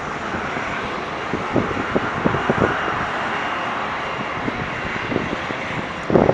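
Steady rushing jet noise of a Boeing 777-300ER's GE90-115B turbofans as it comes in to land, with wind buffeting the microphone a few times.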